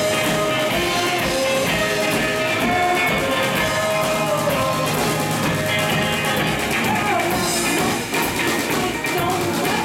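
Live rock band playing: electric guitar and a drum kit, amplified through stage amps.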